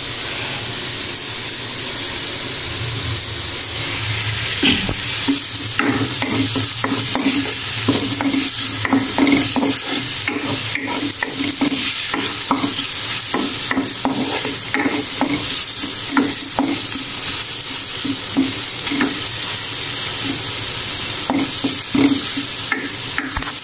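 Chopped onions sizzling in a little oil in a kadhai, stirred with a wooden spoon that scrapes and knocks against the pan many times.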